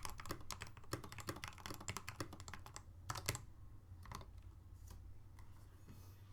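Typing on a modded CosmicByte Firefly CB-GK-34 mechanical keyboard fitted with linear Gateron Milky Yellow Pro switches, PBT keycaps, lubed stabilisers and a tape-modded PCB. Fast, even keystrokes run for about three seconds, then a couple of louder strikes, then a few last scattered keys as the typing stops.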